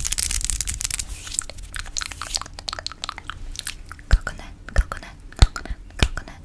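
Close-miked ASMR sounds: a dense, crackling rustle for the first couple of seconds. About four seconds in, fingernail taps begin, with a dull knock, evenly spaced about one and a half a second.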